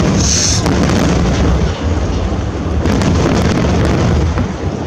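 Aerial fireworks shells bursting in quick succession, a dense run of deep booms overlapping one another with crackling on top, opening with a sharp bang.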